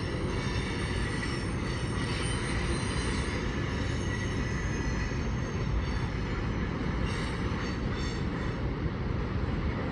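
Freight cars of a long mixed manifest train rolling past at track side: a steady, even rolling noise of steel wheels on rail, with faint high-pitched tones running through it.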